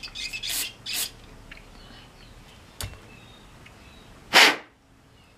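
Aerosol carburetor cleaner sprayed through its straw onto small carburetor jets in two short hisses, then a light click. Near the end comes one louder, brief rush of air.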